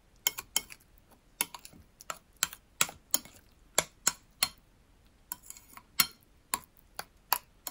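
Metal spoon clinking against a ceramic bowl while stirring mashed banana and butter: a run of sharp, irregular clicks, about two to three a second.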